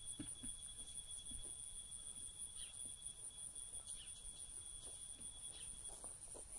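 Insects trilling steadily at a high pitch, with a second, lower steady trill that stops about six seconds in. Faint footsteps on grass.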